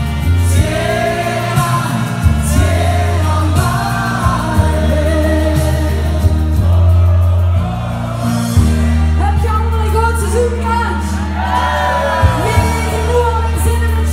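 Loud amplified pop music: a woman singing live into a microphone over backing music with a heavy bass line and a steady beat.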